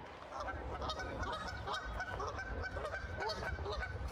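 Geese honking: a run of short, rapidly repeated calls, over a steady low rumble.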